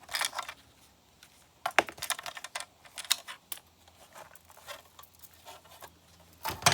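Hand disassembly of scrap electronics: small metal parts and tools clinking and tapping irregularly, with a louder cluster of clinks near the end.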